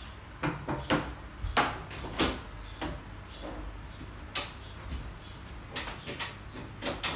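A plywood interior door being handled and swung open: a scattering of sharp knocks and clicks at irregular intervals.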